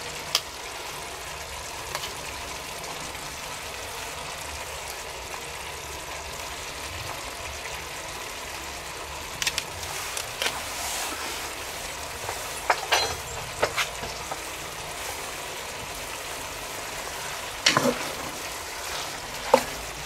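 Sausage, onions and peppers frying in a cast-iron Dutch oven, with a steady sizzle. Occasional short clicks and knocks fall over it, more often in the second half and louder shortly before the end as the food is stirred.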